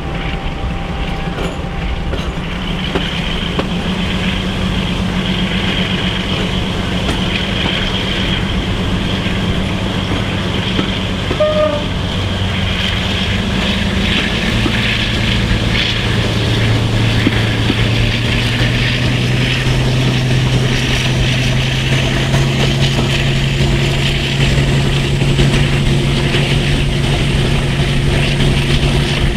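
Class 42 Warship diesel-hydraulic locomotive D821, with twin Maybach V12 engines, running under power as it hauls the train, heard from a coach window behind it over steady rail and wheel noise. About halfway through the engine note steps up and grows stronger, and a thin high whine rises slowly over the second half.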